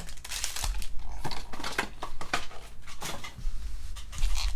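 Glossy Panini Prizm football trading cards being handled and shuffled: a quick, irregular run of sharp scrapes, clicks and slides.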